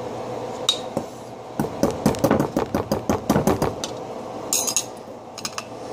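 Metal spoon striking ice frozen solid in a metal cup: a fast run of sharp knocks for about two seconds, then a few scattered taps.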